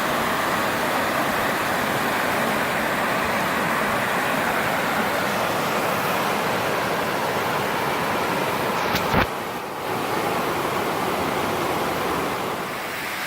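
Steady rushing of a waterfall, with one short click about nine seconds in.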